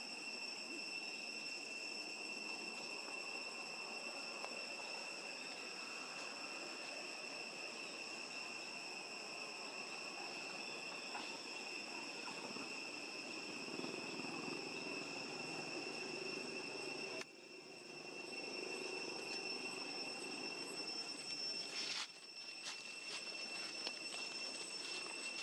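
Steady insect chorus holding two even, high-pitched tones over a soft background hiss. It drops away briefly about 17 seconds in and again about 22 seconds in, with a few faint clicks after the second drop.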